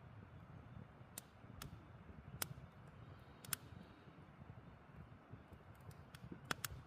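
Wood campfire crackling: scattered sharp pops at irregular intervals, the loudest about two and a half seconds in and again a second later, over a low steady rush of the burning logs.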